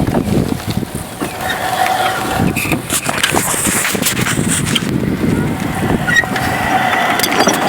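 Homemade remote-controlled electric lawn mower, running on 24-volt wheelchair drive motors, driving along with a rough, rattling rumble; a thin electric motor whine comes in twice, near the start and again near the end.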